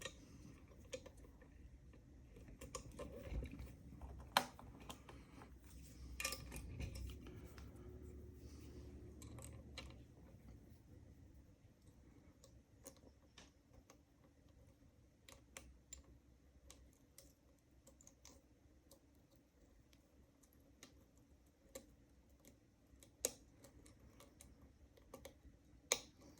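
Faint, scattered clicks of a lock pick and tension wrench working the pins of a standard-pinned Weiser key-in-knob lock cylinder, with a few sharper clicks near the end.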